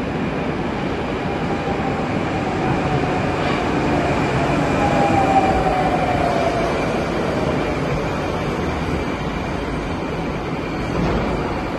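Metro train arriving at an underground platform: a steady rumble of wheels on rails, with a faint whine that falls in pitch through the middle as the train slows.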